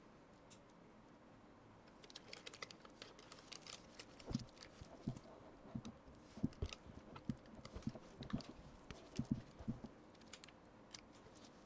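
Irregular light clicks and taps of kitchen utensils against a bowl or pan, with dull knocks among them, starting about two seconds in and stopping near the end.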